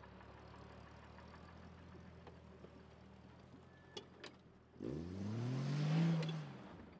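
Off-road SUV engine running low and steady, then revving up about five seconds in and easing off again while driving through a dirt trench obstacle. A couple of short clicks come just before the rev.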